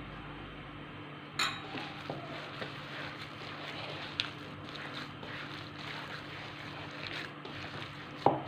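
Hands kneading and squishing a moist minced chicken and chard meatball mixture in a plastic bowl, with a sharp knock about a second and a half in and a few lighter ticks. A steady low hum runs underneath.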